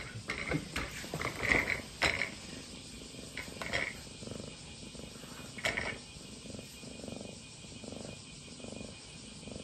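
Kitten purring while its head is scratched, in a faint, steady pulse with each breath. A few light knocks and rattles come in the first couple of seconds.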